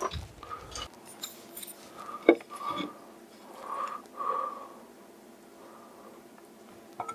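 Chopsticks and a ladle clinking against a ceramic bowl as instant ramyeon noodles are stirred and lifted out of the soup. The sharpest click comes about two and a half seconds in.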